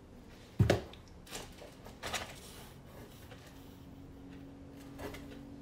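Handling noises from cosmetic samples and their cardboard box: a single knock about half a second in, then a few soft clicks and brief paper rustles.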